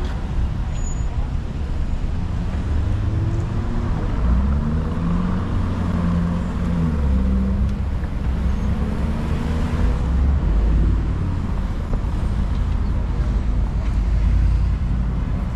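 City street traffic: cars passing on the road with a steady low rumble, one swelling past about two-thirds of the way through, and people talking in the background.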